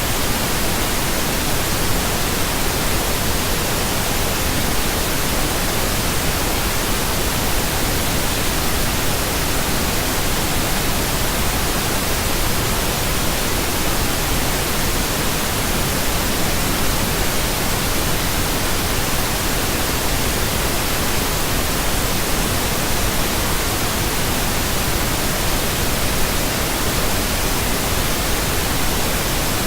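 Steady, unbroken synthetic pink noise: an even hiss across the whole range, with no change in level.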